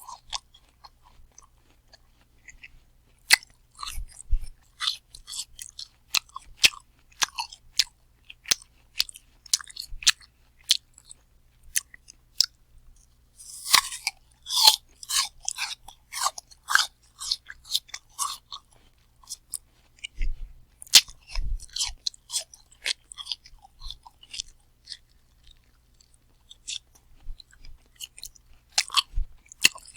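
A person chewing crunchy apple close to the microphone, with irregular wet crackling crunches, denser about halfway through and pausing briefly a few times.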